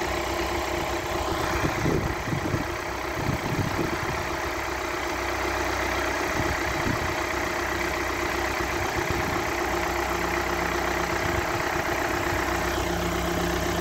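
Tractor engine running steadily while the front-end loader is lowered to push a steel T-post into the ground.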